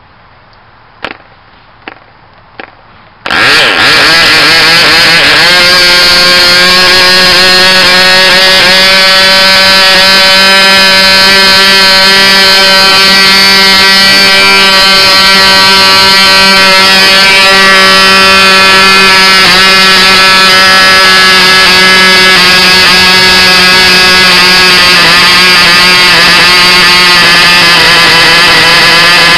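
OS Max 15D model aircraft diesel engine being flicked over by its propeller: three short pops, then it catches about three seconds in and runs loud and steady at full throttle with a high-pitched buzz, at about 11,600 rpm.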